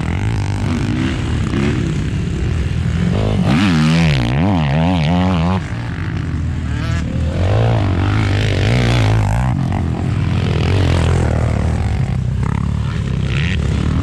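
Off-road vehicle engine being ridden hard. The revs rise and fall quickly several times about four seconds in, then keep climbing and easing off through the rest.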